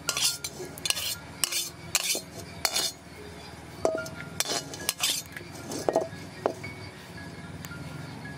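Metal spatula scraping and clinking against a metal wok: several quick scrapes in the first three seconds, then a few ringing clinks against the pan.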